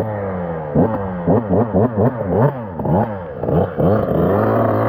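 Dirt bike engine revved in quick throttle blips, its pitch rising and falling sharply several times a second, then held at a steady pitch near the end.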